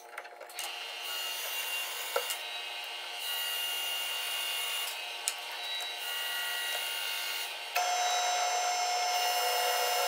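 A steady mechanical hum with a faint whine. About eight seconds in it turns louder and steadier as a benchtop drill press's 1 3/8-inch Forstner bit starts boring into the wooden board.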